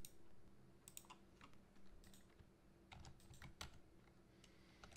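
Faint computer keyboard typing: a few irregular keystrokes.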